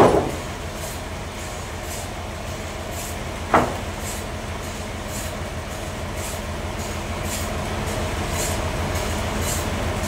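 Band sawmill machinery running steadily with a low, fast-pulsing hum, while the blade is not cutting. Two sharp knocks stand out, one at the very start and one about three and a half seconds in.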